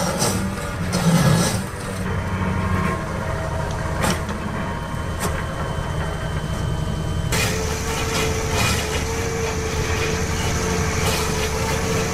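A heavy machine's engine running steadily, with a single sharp knock about four seconds in and a steady whine joining about seven seconds in.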